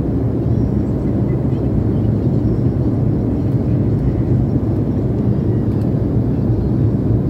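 Jet airliner cabin noise in flight: a steady, loud, low rumble of engine and rushing air heard from inside the passenger cabin.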